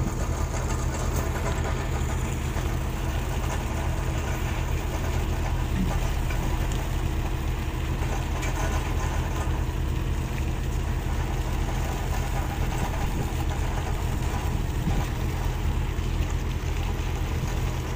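Shrimp trawler's diesel engine running with a steady low drone and an even rush of noise over it.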